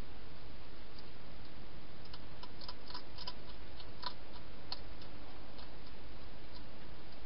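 European hedgehog eating dry food from a bowl inside a plastic feeding box: irregular small crunching clicks, thickest in the middle, over a steady hiss.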